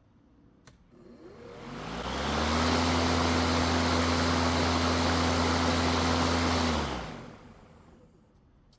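DEWALT 20V MAX 21.5-inch brushless cordless mower's motor and blade spinning up, running steadily with a hum and a rush of air for about four seconds, then winding down to a stop.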